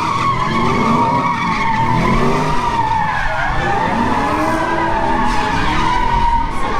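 Car tyres squealing steadily while the engine's revs rise and fall again and again, as in a drift or burnout.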